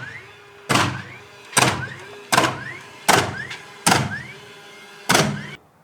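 A series of six sharp knocks, roughly one every 0.8 seconds, each ringing briefly; the sound cuts off abruptly near the end.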